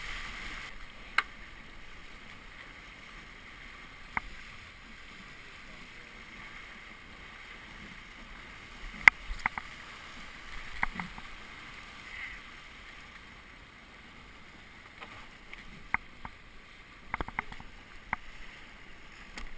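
Water rushing steadily along the hull of a Melges 17 sailboat under way, with short sharp clicks and knocks from the rigging and deck hardware every few seconds, the loudest about nine seconds in and a cluster near the end as lines are handled.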